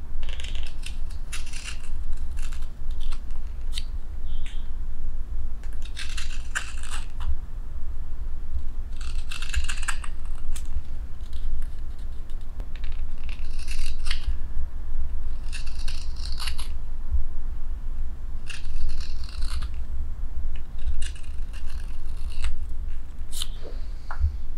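A hook knife carving out the bowl of a wooden spoon: clusters of short, crisp paring cuts every two or three seconds, over a steady low rumble.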